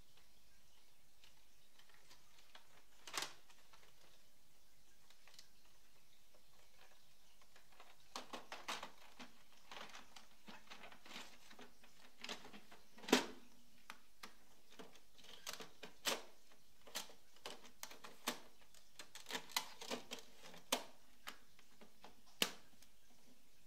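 Plastic paper cassette of an Epson Stylus Photo PX720WD printer being handled and slid into the printer: irregular plastic clicks and knocks, a single one about three seconds in, then many from about eight seconds on, the loudest near thirteen seconds.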